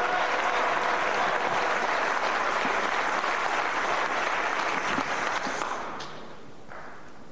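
Spectators applauding a won point, the applause dying away about six seconds in.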